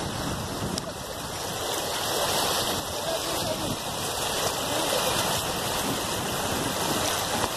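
Shallow river water rushing steadily over gravel and stones.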